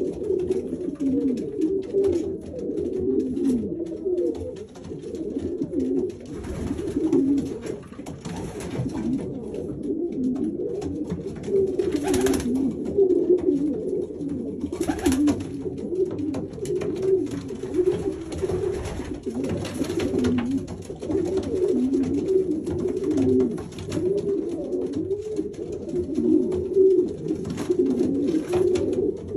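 Domestic pigeon cooing: low, warbling coos that go on almost without pause. There are two short noisy sounds about halfway through.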